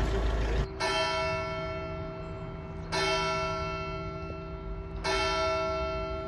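A single church bell tolling slowly, three strikes about two seconds apart, each ringing on and fading before the next.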